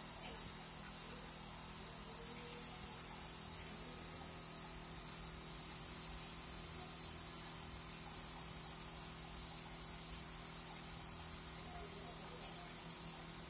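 A cricket trilling: one high, evenly pulsing note that keeps going without a break, over a steady low hum.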